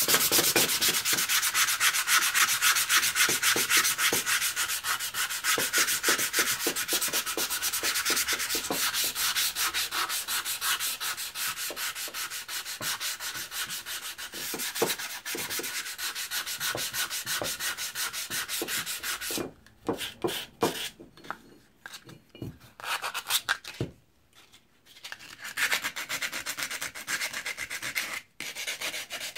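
180-grit sandpaper rubbed by hand back and forth over a rusty steel hatchet head, a rapid scratchy sanding to take off rust. The strokes run without a break for about two-thirds of the time, then come in short bouts with brief pauses.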